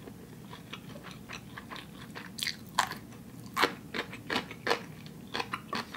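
A person chewing a mouthful of spicy instant fire noodles, giving a run of short, wet mouth clicks that are loudest between about two and five seconds in.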